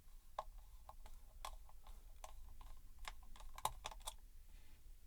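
Irregular small clicks and taps of plastic and small metal parts being handled while headphones are taken apart, with one sharper click about three and a half seconds in.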